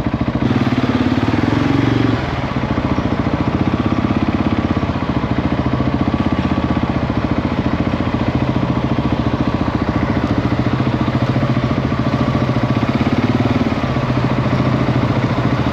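Husqvarna 701's single-cylinder four-stroke engine running steadily at low revs; the note drops slightly about two seconds in.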